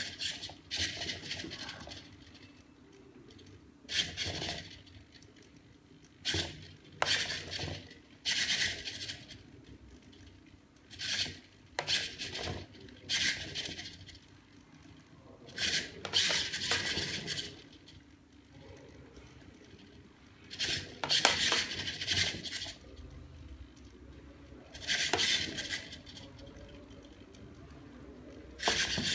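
Steel ball rolling and rattling across the glass plate of a servo-driven ball-and-plate balancing platform, in about a dozen separate bursts as the ball is pushed and the plate tilts to catch it. A steady low hum runs underneath.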